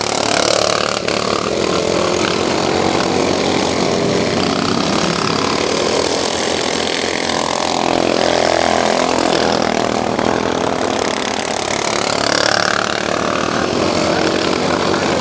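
Small engines of racing lawn mowers running hard, several at once, their pitch falling and rising as the mowers go by.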